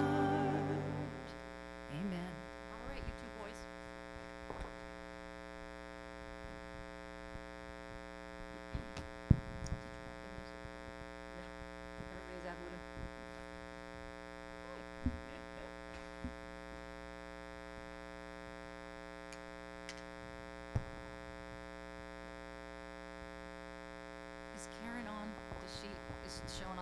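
Steady electrical mains hum with many overtones from the church sound system, with a few scattered knocks and clicks, the loudest about nine seconds in. The last sustained note of the song dies away in the first second or so.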